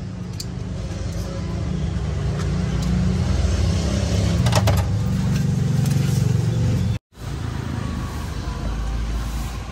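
Roadside traffic: a motor vehicle's engine rumbles close by and grows louder for several seconds, then drops out suddenly about seven seconds in before the traffic rumble resumes. A few light metal clicks of kitchen scissors and tongs sound over it.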